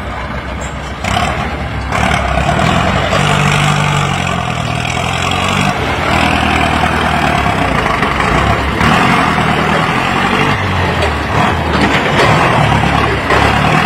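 Ford 6600 tractor's three-cylinder diesel engine working under load as its front dozer blade pushes soil, getting louder about two seconds in and then running steadily.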